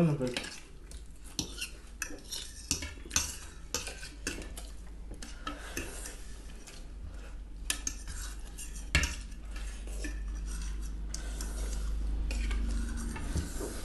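Metal forks clinking and scraping against ceramic plates as two people eat noodles, in scattered sharp clicks, over a steady low hum.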